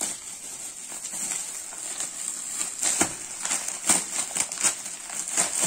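Shiny metallic gift-wrap paper crinkling and tearing as a present is pulled open by hand, a run of sharp crackles with a few louder rips about three and four seconds in.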